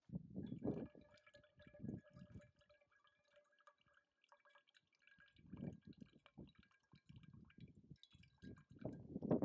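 Filtered water trickling and dripping from a squeeze filter into a stainless steel cup, with a faint steady ringing tone while it runs. Intermittent low thumps sound throughout and are loudest near the end.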